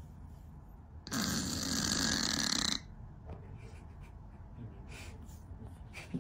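A sleeping Scottish Fold cat snoring: one long snore about a second in, lasting under two seconds.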